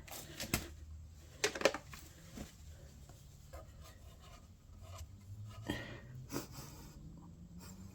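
A few faint clicks and light rubbing sounds of parts being handled on a small petrol engine, scattered over a low steady hum.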